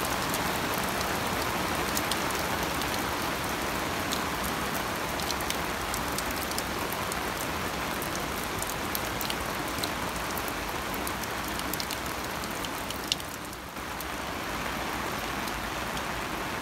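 Heavy, steady hurricane rain falling on the marina water and pattering on the yacht's canvas canopy, with many small drop ticks.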